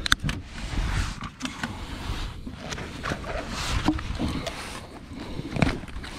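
Close handling noise: a jacket sleeve rubbing and brushing over the microphone, with scattered clicks and knocks as a hook is worked out of a landed jewfish's mouth.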